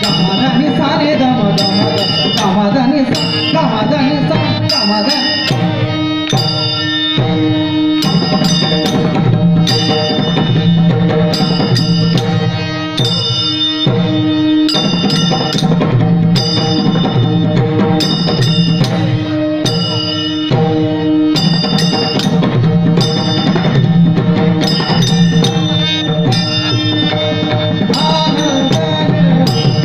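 Marathi Warkari devotional music: a hand drum and small cymbals striking in a regular rhythm over steady held melodic tones.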